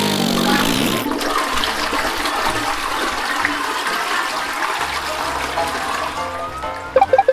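Cartoon sound effects: a low fart right at the start, then a toilet flushing, with water rushing for about six seconds. A rising whistle and a few plinks come in near the end.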